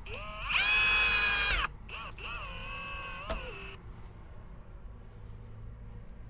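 Cordless drill/driver driving screws into a door latch plate. The motor whine rises and runs for about a second, stops briefly, then runs for about two seconds more, dipping in pitch under load, with a click near the end as it winds down.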